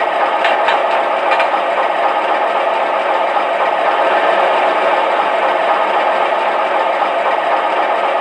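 O-scale model GE 44-tonner diesel locomotive's onboard sound system playing a steady diesel idle, thin and with little bass, with a few light clicks in the first second and a half.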